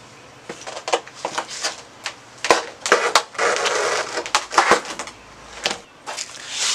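Old headliner fabric and backing being ripped and scraped off the headliner board, with irregular clicks and scrapes and a longer rasping tear about three and a half seconds in.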